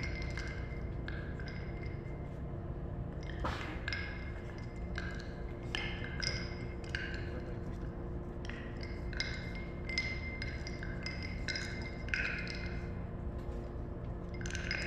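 Ice cubes clinking and cracking in a glass, irregular sharp ticks about once a second, each ringing briefly with a glassy ping, over a steady low rumble.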